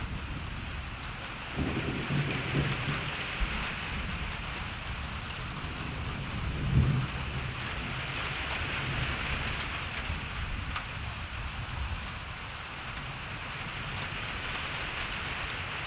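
Steady rain falling, with rolls of thunder rumbling low: one begins about a second and a half in, and a louder one comes near the middle.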